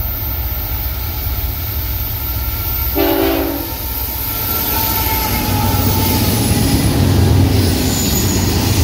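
Freight train hauled by GE diesel-electric locomotives approaching with a steady low diesel rumble, with one short horn blast about three seconds in. From about five seconds the rumble grows louder and thin wheel squeal joins as the train works around the curve.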